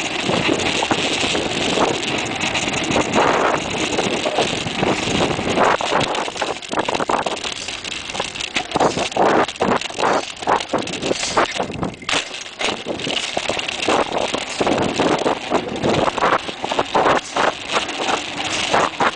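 Mountain bike ridden over tarmac, heard from a handlebar-mounted camera: a steady rush of wind and tyre noise, broken by irregular knocks and rattles as the bike goes over bumps.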